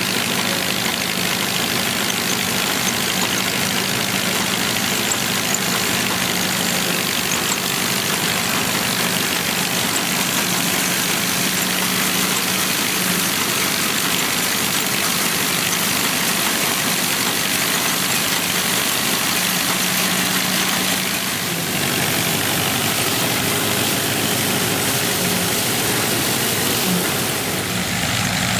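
1931 Gleaner combine running while threshing, its Ford Model A four-cylinder engine and threshing machinery making a steady mechanical din with a constant low hum under an even hiss.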